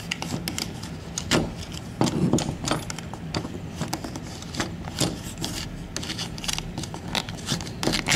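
A plastic card scraping and clicking against a door's spring latch as it is worked and wiggled into the gap between door and frame, with small rattles from the brass doorknob, in an irregular run of clicks and scrapes and a sharper click near the end.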